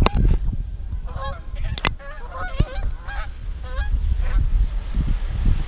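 A flock of geese honking over and over in flight, with wind rumbling on the microphone.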